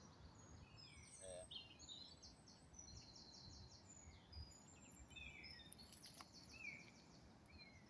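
Faint woodland birdsong: several small birds giving short chirps and quick trills, over a faint low background rumble.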